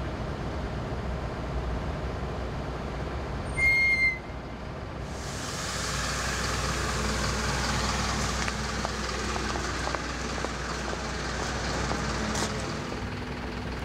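Airport apron bus standing with its doors open, a long hiss of air from its pneumatic system over a low engine hum. A short electronic beep sounds about four seconds in, just before the hiss starts.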